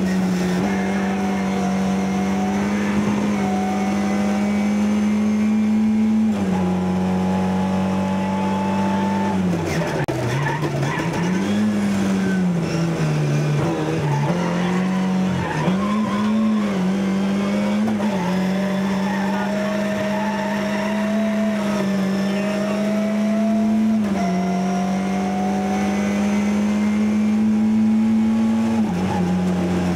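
Rally car engine under hard driving, heard from inside the cabin: the revs hold steady, with a shift about six seconds in and another near the end. In the middle the revs rise and fall again and again as the driver lifts, brakes and accelerates through a series of tight turns.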